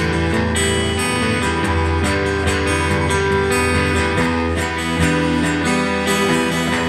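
Electric and acoustic guitars playing a slow, sustained instrumental rock passage with a heavy low end.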